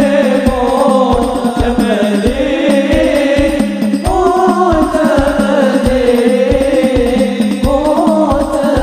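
Sholawat: a male voice sings a devotional melody over a steady beat of banjari frame drums (rebana), with low drum strokes about two to three a second.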